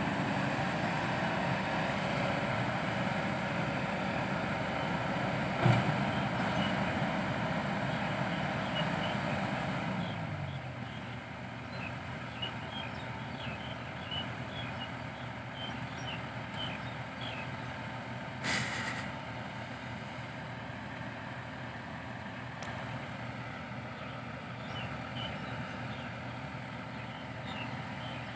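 Kobelco SK200-8 Super XM excavator's diesel engine running hard under hydraulic load, with a single knock about six seconds in. About ten seconds in the engine winds down to a steady idle. A short hiss comes about two-thirds of the way through.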